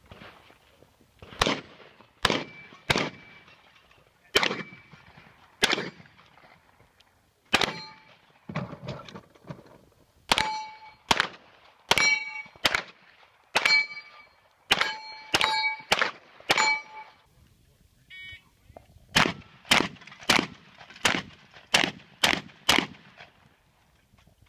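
Competition gunfire: about two dozen shots in uneven strings, many of them followed by the ring of struck steel targets. It ends in a fast string of pistol shots.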